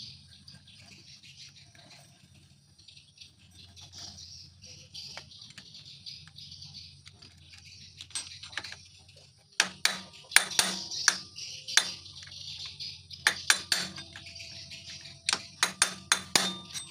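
Sharp metallic clicks and taps in quick clusters, starting about ten seconds in after a quiet stretch: hand tools working on a motorcycle's clutch assembly.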